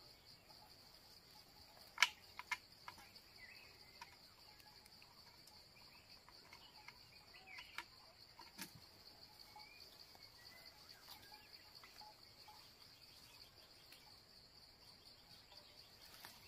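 A steady, high insect drone. It is faint, and a few sharp clicks and snaps from hands working a bamboo trap break through it, the loudest about two seconds in.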